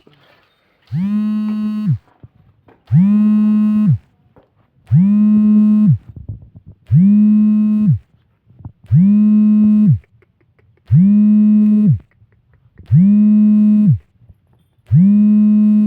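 A long pitched tone repeated eight times at an even two-second beat, each about a second long, sliding up at the start and dropping away at the end; the repeats are identical, like a looped electronic sound.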